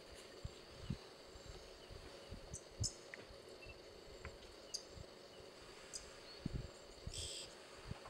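Quiet bush ambience: a steady insect hum with a few short, high bird chirps and scattered soft low thumps. About seven seconds in, a brief high hissy burst.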